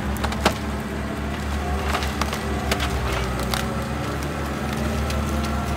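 Trom 8x8 all-terrain vehicle's Kubota V2403 diesel engine running steadily as it pushes through forest, with repeated cracks and snaps of branches and small trees breaking under it.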